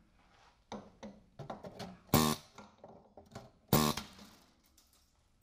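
Rusted sheet-steel rocker panel cut off a 2001 Chevy Silverado being pulled free and handled, with scattered knocks and scrapes and two loud ringing metal clangs about two seconds and nearly four seconds in.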